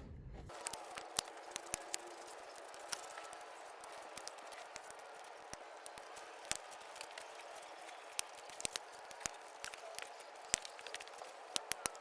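Irregular small clicks and taps of hand tools on metal as a bracket is unbolted in a car's engine bay, over a steady faint hiss.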